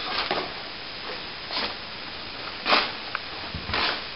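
Plastering trowel scraping over plaster in four short strokes, about a second apart.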